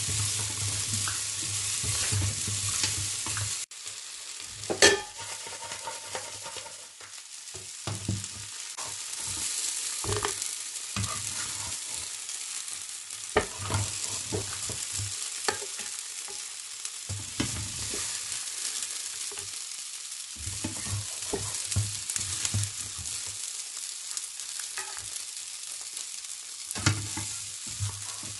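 King crab legs, onion and ginger sizzling in a hot nonstick frying pan while they are stirred and scooped out with utensils, with intermittent scrapes and knocks against the pan. There is one sharp knock about five seconds in.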